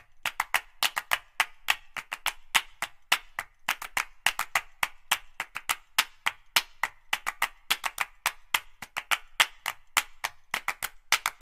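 A quick, uneven run of sharp, dry percussive clicks or claps, several a second, with no bass or melody under them.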